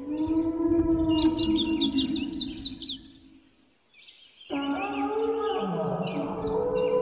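Wild ambience with many birds chirping and low, drawn-out animal calls underneath. The sound drops out about three seconds in and comes back a second and a half later.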